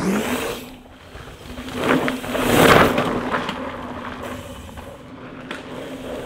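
Mountain bike coasting on a trail, its Hope Pro 4 rear hub's freewheel giving a steady high buzz, under rushing tyre and wind noise. A louder surge of tyre noise on dirt comes about two to three seconds in.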